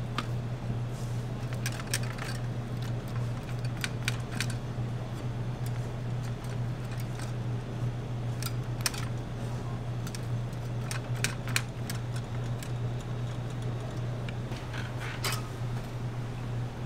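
Steady low hum, like a fan, with scattered light clicks and clinks of kitchen utensils and equipment being handled, a few at a time every few seconds.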